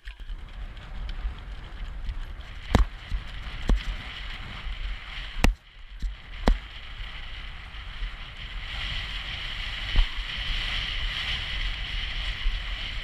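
Wind rushing and buffeting over the microphone of a camera worn while riding a horse at pace, with a few sharp knocks along the way. The rush grows louder and brighter about two-thirds of the way through.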